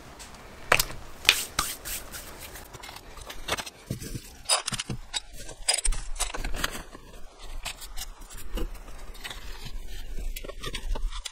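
Hands working with plastic plant pots and potting soil during repotting: irregular scrapes, clicks and crackles.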